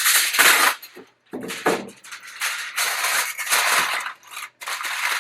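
Aluminum foil crinkling and rustling in irregular bursts as it is pressed and smoothed into the pan of a stovetop smoker to line it.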